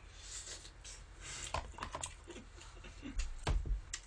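Close-miked chewing of a mouthful of raw spinach salad: irregular crisp crunches and wet clicks, with a dull thump about three and a half seconds in.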